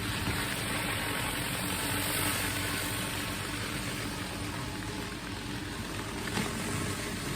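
Pressure washer running steadily: an engine hum under the even hiss of the water spray.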